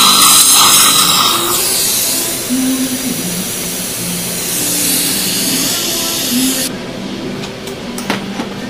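Steady rushing hiss of dental chairside suction or air equipment. It changes tone about one and a half seconds in and cuts off sharply about seven seconds in.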